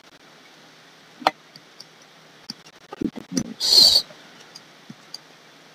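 A few sparse clicks from computer input while drawing: one sharp click about a second in and fainter ticks after. A short breathy hiss comes about four seconds in.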